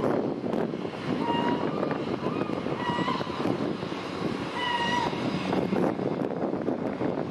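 A floatplane's propeller engine drones steadily as it climbs away. Over it a bird gives a short, clear, high call several times, each call a fraction of a second long.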